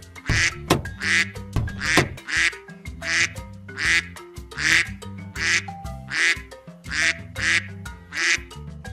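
Cartoon duck quacks repeating evenly, about one every three quarters of a second, over a bouncy children's music track.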